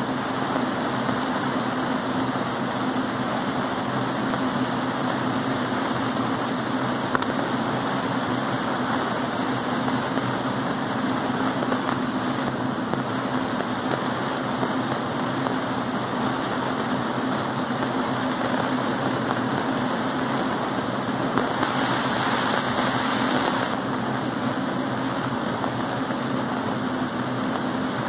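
Laser cutting machine running as it cuts laser ply: a steady machine hum with an even hiss over it. About 22 seconds in, the hiss grows brighter for around two seconds.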